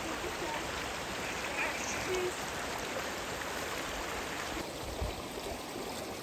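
Small mountain stream flowing over rocks between snow and ice, a steady rush of water that thins out about four and a half seconds in, with one dull thump about five seconds in.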